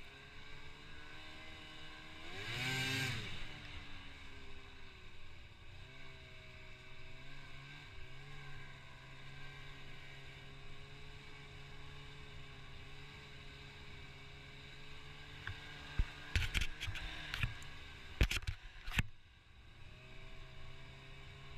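Ski-Doo Summit 600 snowmobile's two-stroke engine running at a distance, swelling and rising then falling in pitch about two to three seconds in, then running steadily. A few sharp clatters come about three quarters of the way through.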